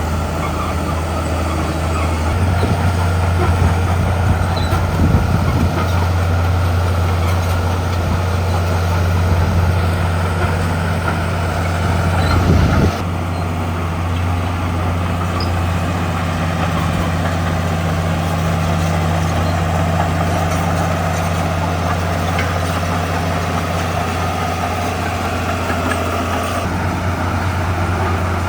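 Heavy diesel earthmoving machinery running steadily under load, with a low engine drone and occasional clanks. The sound changes abruptly about thirteen seconds in.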